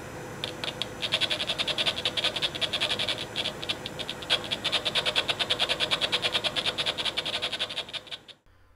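Small speaker of a homemade LM741/LM386 op-amp sniffer amplifier playing the signal picked up by its probe: a fast, regular train of buzzy clicks over a steady hum. It cuts off suddenly near the end.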